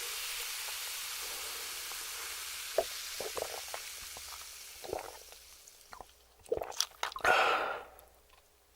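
Close-up eating sounds: scattered crisp crunches and clicks of fried chicken being bitten and chewed, with a louder crunchy burst near the end, over a steady hiss that fades away in the first half.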